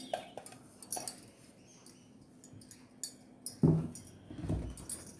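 Kitchen dishes being handled: a series of light clinks and clicks, with a heavier thump about three and a half seconds in and another about a second later.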